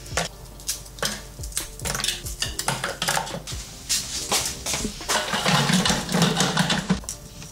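Plastic clicks and knocks of a food processor's bowl, lid and pusher being handled and snapped into place, with the chocolate bar pieces and wafers inside, before the motor is switched on.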